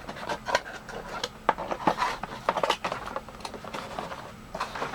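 Toy helicopter's box and packaging being opened and handled by hand: a string of irregular clicks, taps and rustles.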